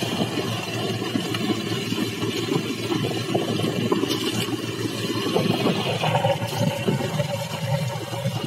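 Small outrigger fishing boat's engine running steadily while the boat is under way.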